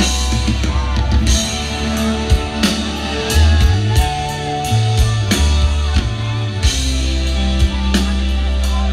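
Live rock band playing: bass guitar and electric guitar over a drum kit, with cymbal crashes at intervals.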